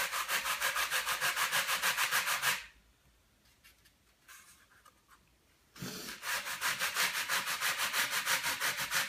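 Sanding block rubbed back and forth over a model glider wing's ribs with light pressure, taking down the marked high spots. It makes a run of quick, even scratching strokes, stops for about three seconds in the middle, then starts again.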